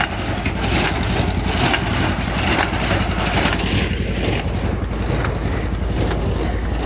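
John Deere 50 two-cylinder tractor pulling a New Holland 273 small square baler: the engine runs steadily under load while the baler clatters, with wind on the microphone.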